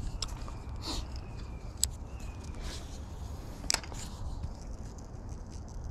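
A spinning reel being cranked on a light rod during a lure retrieve: a faint whir with scattered sharp clicks of the reel and handling, over low wind rumble on the microphone.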